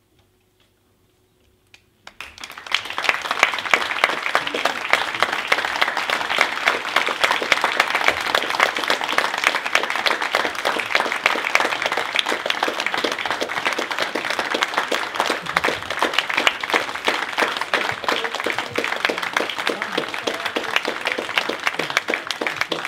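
An audience applauding, the clapping starting suddenly about two seconds in and continuing steadily as a dense mass of many hands.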